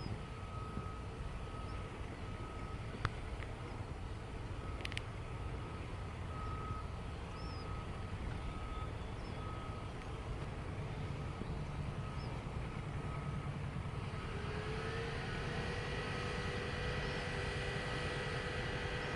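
Machinery running steadily with a low rumble and a thin whining tone that breaks on and off. About fifteen seconds in, a second whine rises and then holds steady. There are a couple of sharp clicks near the start and faint bird chirps.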